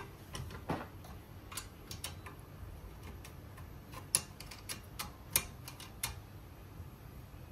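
Irregular light clicks and taps of mower parts being handled and fitted together while a hand push lawn mower is assembled, about eight of them over several seconds.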